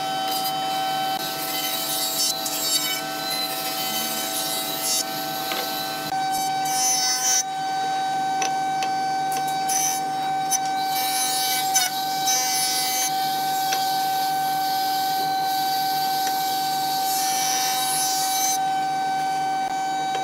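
Woodworking jointer running with a steady high whine, its spinning cutterhead planing a hardwood board. A hissing cutting noise rises over the whine with each pass of the board, in several passes, the longest near the end.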